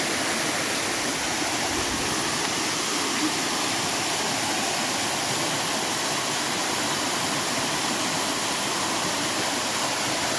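River water rushing steadily over rocks and into pools, a continuous even rush with no change in level.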